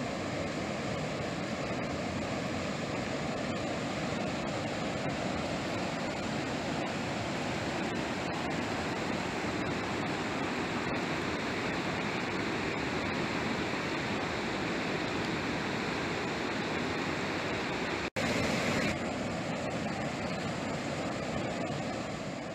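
The Mrežnica river rushing steadily as it flows fast and spills over a low cascade. The rush breaks off for a moment about eighteen seconds in.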